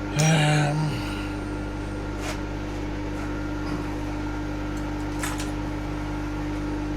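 Steady electric motor hum of a running workshop machine. A brief, louder buzzing burst comes just after the start, and two light metallic clicks come later.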